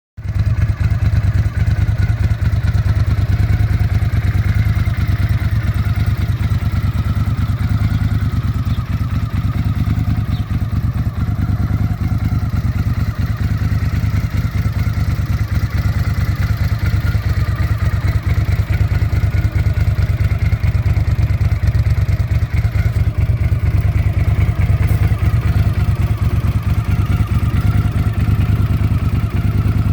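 Honda CX650E's liquid-cooled V-twin engine running steadily at an even idle, with no revving.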